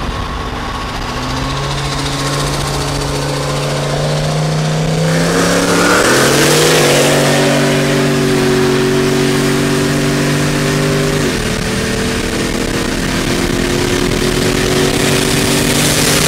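Turbocharged 402-cubic-inch LS V8 of a Chevy pickup pulling hard, heard from inside the cab: the engine's pitch climbs sharply about five seconds in as a loud rushing hiss joins it, holds, drops suddenly at a gear change about eleven seconds in, then climbs again.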